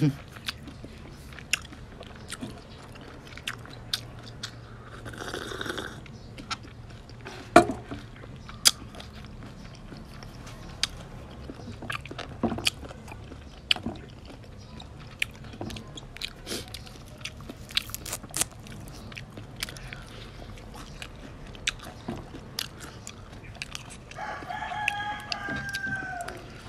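Close mouth sounds of raw shrimp with chili sauce being eaten: wet chewing, lip smacks and sharp clicks scattered throughout. Near the end a rooster crows once, a call of about two seconds that falls in pitch at its close.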